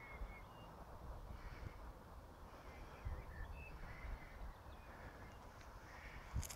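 Faint outdoor ambience: wind noise on the microphone, with a few short, faint bird calls.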